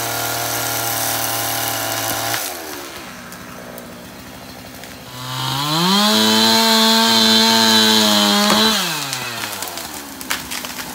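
Chainsaw running at speed, dropping back to idle about two seconds in, then revved up high for about three seconds and let back down to idle.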